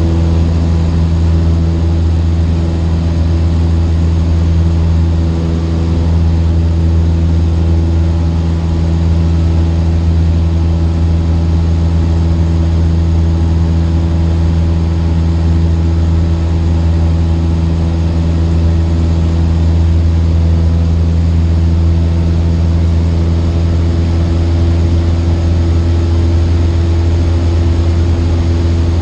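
Cessna 152's four-cylinder Lycoming engine and propeller droning steadily in flight, heard inside the cabin.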